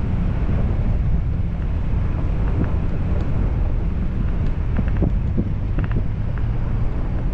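Wind buffeting the microphone of a hood-mounted camera on a Ford Bronco Wildtrak driving along a dirt trail, over the truck's steady low rumble, with a few light clicks in the middle.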